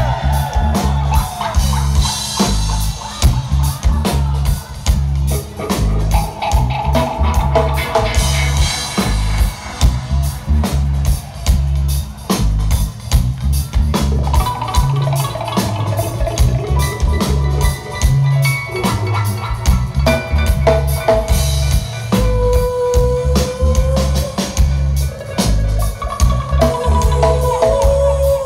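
Live reggae band playing without vocals: a heavy, repeating deep bass line under a drum kit with rimshots, and melodic instrument lines coming in over it in the second half.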